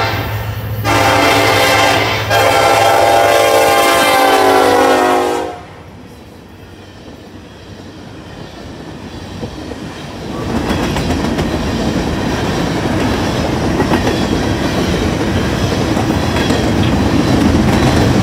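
BNSF freight locomotive horn blowing a multi-tone chord: two short blasts, then a long one that cuts off about five and a half seconds in. From about ten seconds in, the coal train's cars roll close by with a steady rumble and rapid clickety-clack of wheels over rail joints, growing louder toward the end.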